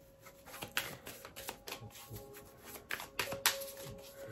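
Tarot cards being shuffled by hand: a run of quick, irregular card clicks and flicks, over faint background music.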